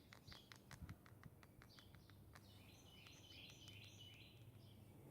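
Faint birds chirping in the background, with a quick run of small clicks over the first two seconds.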